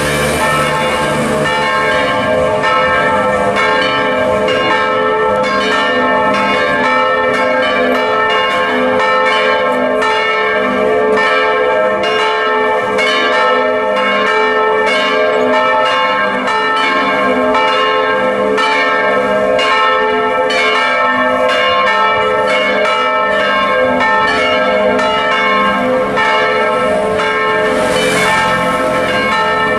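Church bells swinging and ringing in a continuous peal: several bells are struck over and over, a few strokes a second, and their tones ring on and overlap. The bells are swung by electric motors driving wheels and belts.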